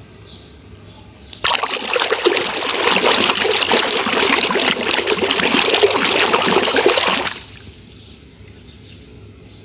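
Water splashing and sloshing in a plastic tub as a hand swishes a muddy plastic toy through it to wash the mud off. It starts suddenly about a second and a half in, goes on for about six seconds, and cuts off abruptly.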